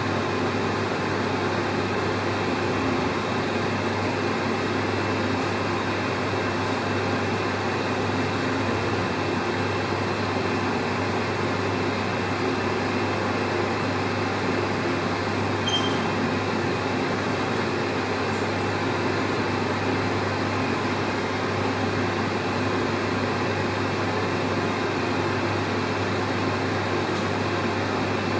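Steady hum and whir of running machinery, unchanging throughout, with a strong low hum beneath.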